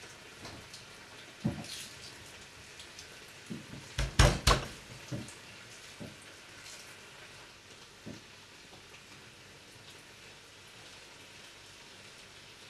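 Kitchen cookware clatter: scattered knocks of a pan or utensil, the loudest two close together about four seconds in, over a faint steady hiss.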